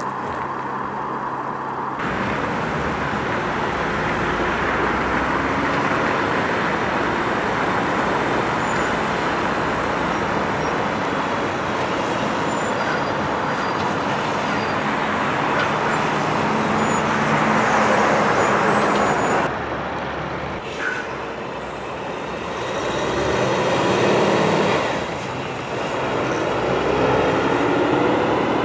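Heavy HCT log truck with its log trailers running and driving by: steady engine and tyre noise that swells as it passes, drops abruptly about twenty seconds in, then builds again.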